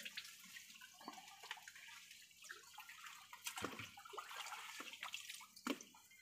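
Faint splashing and dripping of river water as a fishing net is lifted and shaken in the shallows, with a few scattered small ticks and splashes.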